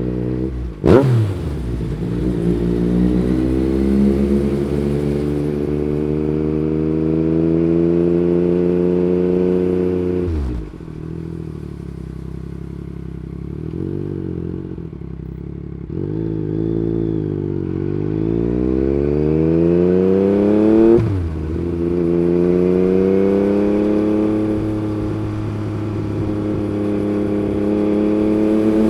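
Yamaha MT-09 gen 3's three-cylinder engine through an Akrapovic Racing Line carbon exhaust, pulling up through the revs under acceleration. Quickshifter upshifts cut the note suddenly about a second in and again about 21 s in, each followed by the pitch climbing again. Around 10 s the throttle closes and the engine note drops and falls away for several seconds before it picks up again.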